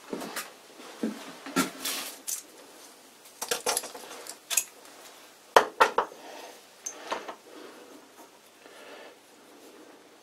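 Small metal parts and a spring clamp being handled on a cast-iron lathe tailstock: a string of light metallic clinks and knocks, the sharpest about six seconds in, then fainter handling as a screw is started by hand into the locking-screw hole.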